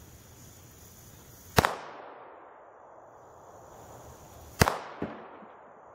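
Two shots from a Ruger Mark III 22/45 .22 LR pistol, about three seconds apart, each a sharp crack with a short decaying tail. A fainter knock follows the second shot by about half a second.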